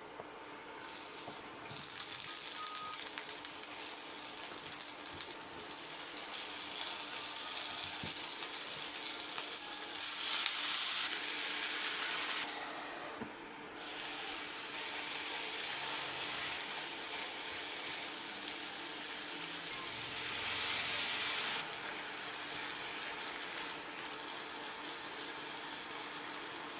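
Food sizzling as it fries in hot oil in a pan, a steady hiss that swells and eases, with a brief lull about halfway through.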